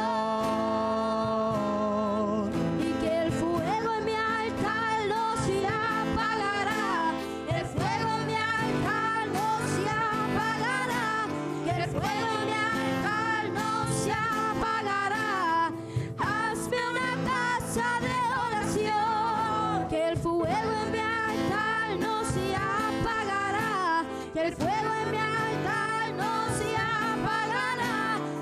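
Worship song sung by voices with instrumental accompaniment: sustained sung phrases with vibrato over steady held chords, pausing briefly between phrases.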